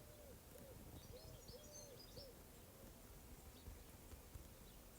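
Faint bird calls in near-quiet surroundings: a run of soft, short hooting notes, about two a second, dying away after about two and a half seconds, with a few brief high chirps partway through.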